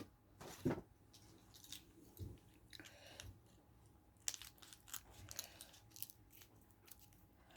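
Faint close-up eating sounds: a person biting and chewing fried chicken, with scattered small crunches and mouth clicks.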